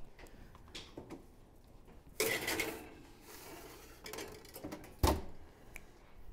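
Metal kitchen clatter from opening a wall-range oven and sliding a sheet pan in. About two seconds in there is a loud scraping, ringing rush of metal as the oven is opened and the pan goes onto the rack. About five seconds in the oven door shuts with a single sharp thump, the loudest sound, with a few light knocks of the tray in between.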